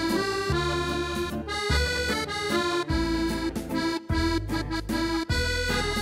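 A Yamaha Clavinova CVP-705 digital piano plays a traditional Cebuano children's song in its 'French Musette' accompaniment style. An accordion voice carries the melody over bass and chord accompaniment.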